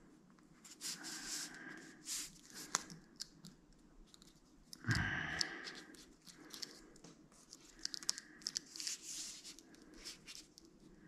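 Faint handling of double-sided mounting tape being peeled and pressed onto a rubber strip: scattered crinkles, clicks and short tearing noises, with a longer rasp about five seconds in.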